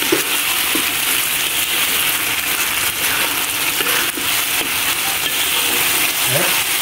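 Chillies, lemongrass and lime leaves in oil and sauce sizzling steadily in a large metal wok, stirred with a metal spatula.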